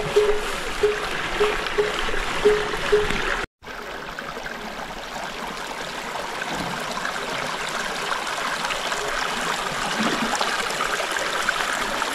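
Small mountain stream running and trickling over stones, a steady even rush of water. For the first three seconds a short ringing note repeats about twice a second; the sound drops out for a moment, then the stream carries on alone.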